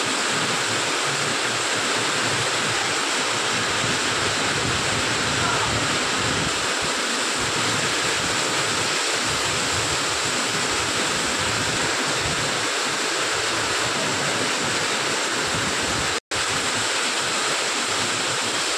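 Heavy rain falling, a steady even hiss with no letup; the sound drops out for an instant about 16 seconds in.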